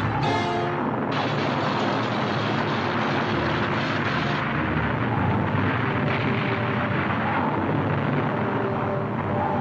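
Steady, loud rushing noise from a drama soundtrack's sound effect, with faint held music tones beneath it. It sets in as an orchestral passage breaks off and fills out about a second in.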